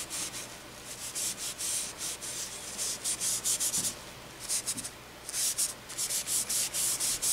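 Folded paper napkin scrubbed back and forth over graphite dust on drawing paper, blending it in: a quick run of dry rubbing strokes, about three a second, with brief lulls about four and five seconds in.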